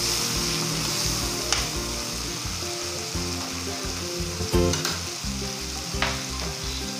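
Garlic, onion and tomatoes sizzling in hot oil in a wok, stirred with a metal spatula, with a few sharp clicks of the spatula against the pan. Background music plays underneath.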